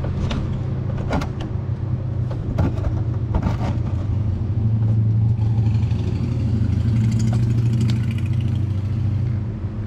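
A steady low mechanical drone, engine-like, with a few sharp clicks and rattles of wiring connectors being unplugged from a steering wheel's horn-cover buttons.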